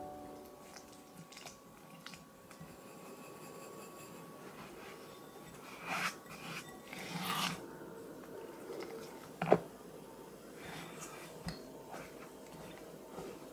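Cream cheese being worked in a glass bowl with a silicone spatula: soft squishing and scraping, louder around six to seven and a half seconds in, with one sharp tap against the glass about nine and a half seconds in.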